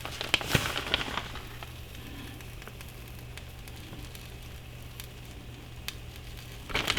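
Buttered sandwich frying in a hot skillet: a faint steady sizzle with scattered crackles, after a few light rustling ticks in the first second or so.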